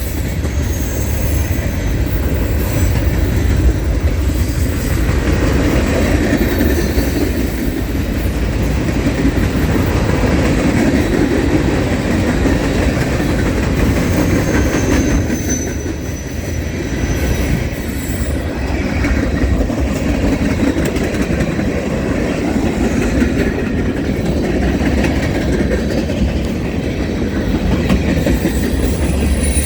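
Norfolk Southern freight train's cars rolling past at steady speed, steel wheels running over the rails with a steady rumble. A brief high wheel squeal comes about halfway through.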